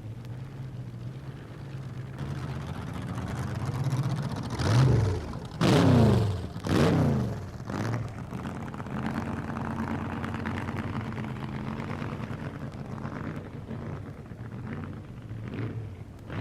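Dragster engine idling, then revved hard about four times in quick succession near the middle, the pitch falling back after each blip, before it settles back to a steady idle.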